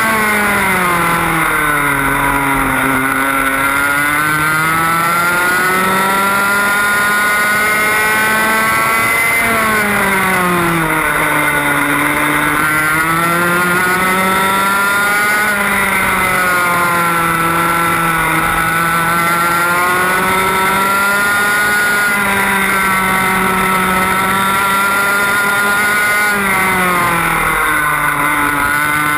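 A 125cc two-stroke TAG kart engine heard onboard at racing speed, its revs dropping into each corner and climbing again down the straights, several times over.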